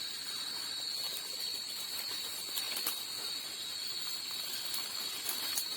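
Chorus of night insects: a steady, unbroken high-pitched trill over a hiss, with a few sharp clicks scattered through it.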